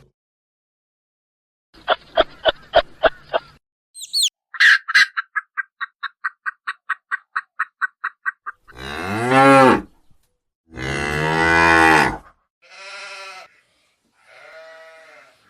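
A series of animal calls: a quick run of short pulses, then a fast train of about twenty short high notes, then two loud long calls that fall in pitch, followed by two fainter calls near the end.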